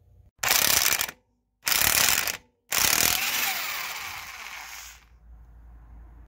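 Impact wrench hammering loose the castle nut on an ATV's front wheel hub in three bursts. The third burst lasts about two seconds and fades as it ends.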